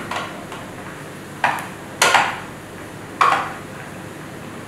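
Metal kitchenware knocking and clattering against a baking tray, three sharp clanks at uneven spacing, as kunafa dough is pressed down firmly into it.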